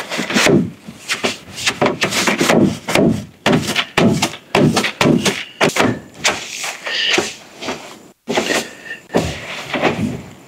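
Broom sweeping the smooth plastic floor of a cut-down IBC tote, with quick brushing strokes about twice a second and a brief pause about eight seconds in.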